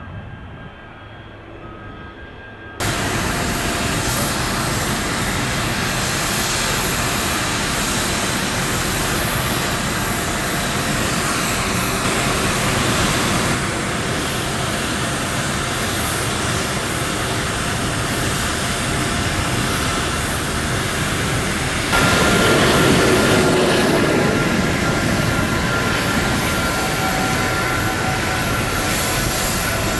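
Jet engines of an Airbus A330-200 airliner, a loud, steady, rushing noise that comes in abruptly about three seconds in and grows louder again about 22 seconds in.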